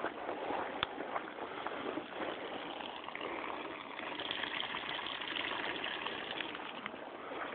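Water-jet vacuum aspirator running on tap water, a steady rush of water as it pulls a vacuum on a carboy of wine to degas it. There is a sharp click about a second in, and the hiss grows brighter around the middle.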